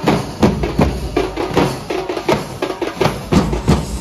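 Chenda drums beaten with sticks in a Kerala temple drum ensemble (chenda melam): dense, fast, sharp strikes in a driving rhythm, with strong accents two or three times a second.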